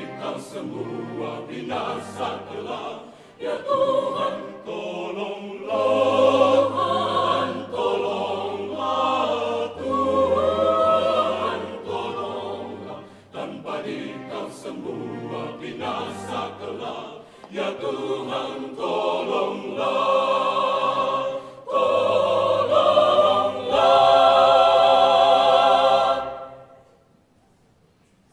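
Mixed choir of men's and women's voices singing unaccompanied, with a low bass line under the upper parts. The piece ends on a loud held final chord that fades out about 26 seconds in, leaving near silence.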